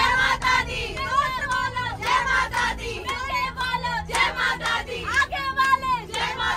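A group of people singing loudly together, with hand claps throughout.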